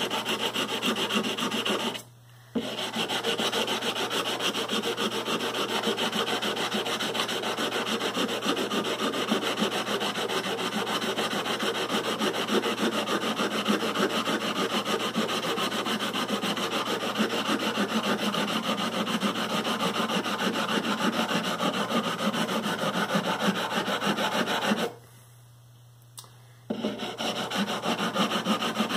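Sanding block rubbed back and forth along the metal frets of a Fender Stratocaster neck, leveling down high frets. Steady scraping, with a brief pause about two seconds in and a longer one near the end.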